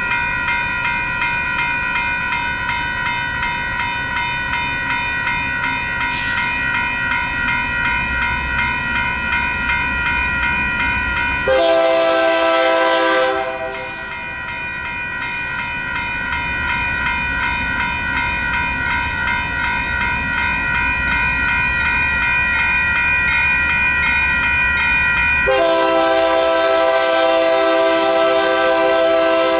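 Grade-crossing bell ringing steadily with a quick pulsing rhythm. UP 6252, an ex-SP GE AC44CW with a Nathan K3HA horn, sounds its horn twice over the low rumble of the approaching train: a blast of about two seconds roughly twelve seconds in, then another starting a few seconds before the end that is still sounding when it ends.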